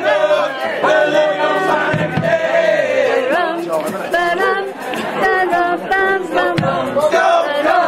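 Amateur choir singing a song together, many voices at once.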